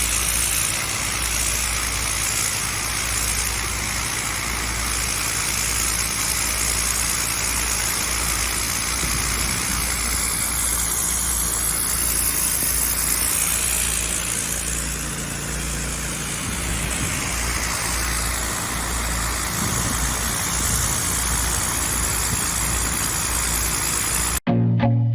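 Pressure washer running steadily, its engine humming under the hiss of the high-pressure water spray. Near the end the sound cuts off suddenly and music with a steady beat begins.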